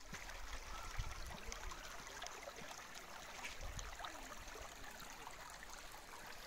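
Steady rush of running water, as from a stream, with a few faint ticks.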